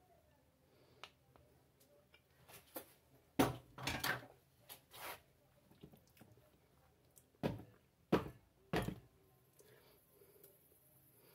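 Wooden spatula and spoon scraping and knocking against a ring mold as thick natilla is spread and smoothed: soft scrapes, a cluster of louder knocks about three to four seconds in, and three separate dull knocks from about seven and a half to nine seconds.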